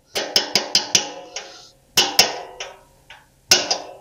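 A small metal tapper striking the top of a stuck engine valve to drive it down, in sharp ringing taps. There is a quick run of about five near the start, then a few more in pairs with pauses between. The taps are working the sticking valve free in its guide.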